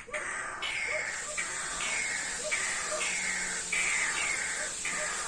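An unidentified bird calling over and over, a harsh note roughly every half second, over a steady high hiss.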